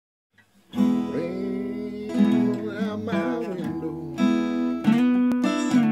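Acoustic guitar opening a blues tune, chords strummed with a few notes bent, starting after a moment of silence. A sharp tap sounds near the end.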